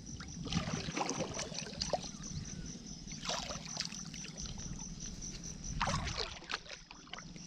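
Water sloshing and splashing gently around a person floating on a motorcycle inner tube, with small irregular knocks.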